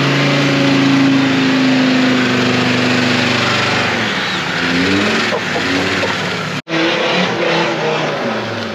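Roll-caged off-road 4x4 engine held at high revs as it drives through deep mud, then revving up and down for a couple of seconds. After a sudden cut about two-thirds through, another off-road vehicle's engine is heard under load on the climb.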